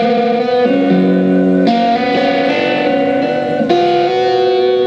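Electric guitar playing long, ringing chords over a held drone, with new notes struck about a second in and again near the end.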